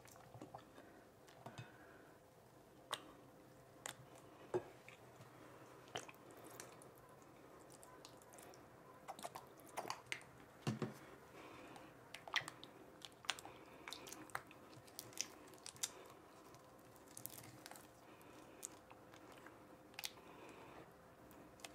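Thick glue slime being stirred with a spatula in a glass bowl while it is being activated: faint, irregular sticky squelches and small clicks, coming more often in the second half.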